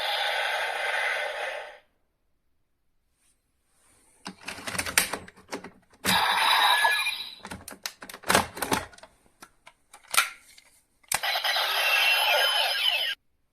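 Bandai DX Metal Cluster Hopper Progrise Key toy being worked by hand: sharp plastic clicks from its button and folding parts, between short bursts of its electronic sound effects from its small speaker, which stop about two seconds in, play again about six seconds in and once more near the end.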